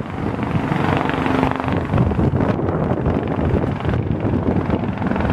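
Wind buffeting the camera's microphone: an uneven, gusty low noise, with a faint brief hum about a second in.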